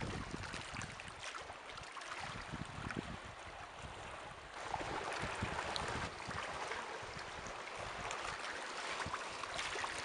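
Shallow sea water gently lapping and trickling over pebbles at the shore, with fine ticking from the water and stones and wind rumbling on the microphone. The water sound grows louder and brighter about halfway through.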